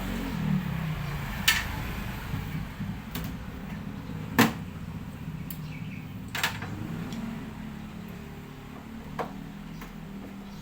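A handful of sharp knocks and clicks from tools and parts being handled while an air conditioner is taken apart, the loudest about four seconds in, over a steady low hum.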